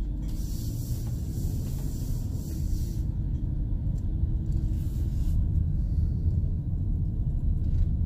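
Low steady rumble of a van driving, engine and tyre noise heard from inside the cab, with a hiss on top for about the first three seconds.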